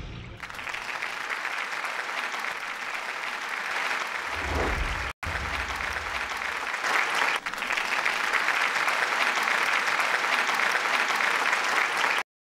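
Applause: a steady wash of many hands clapping, with a brief break about five seconds in. It cuts off suddenly near the end.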